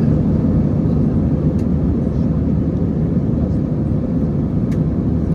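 Loud, steady jet airliner roar, the rumble heaviest in the low end, with a couple of faint clicks.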